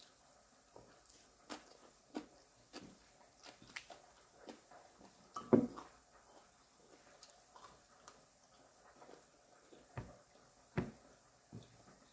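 Close-up eating sounds: chewing crunchy green papaya salad, with scattered crisp clicks and crunches a second or so apart and one louder sound near the middle.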